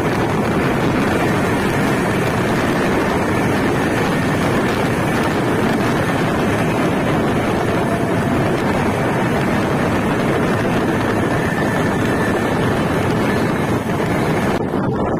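Express passenger train running at speed: a steady rumble of wheels on rail mixed with a strong rush of wind across the microphone at an open coach doorway. The sound turns duller just before the end, as its hiss drops away.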